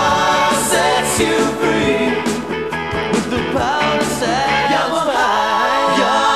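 Rock-style background music with a singing voice over the band; the bass drops out about two-thirds of the way through.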